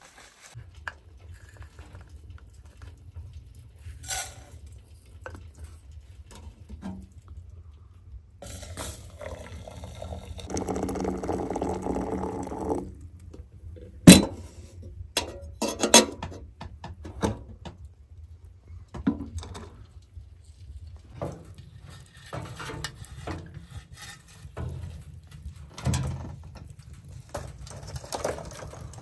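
Water poured into a sooty metal kettle for several seconds, the filling sound rising in pitch as it fills. A single sharp metallic clank follows, then scattered knocks and clinks over a low steady hum.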